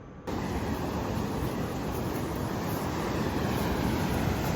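A steady rushing noise with no distinct tone that starts abruptly about a quarter second in.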